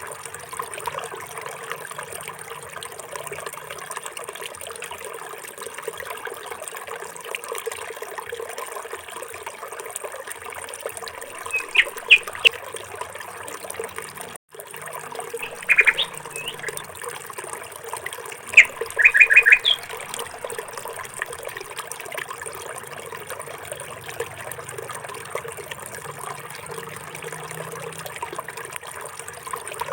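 Steady trickling water, with a small bird chirping in short bursts a few times.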